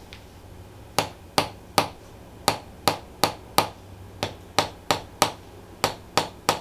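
Series of sharp taps or clicks in quick runs of three or four, about a third of a second apart.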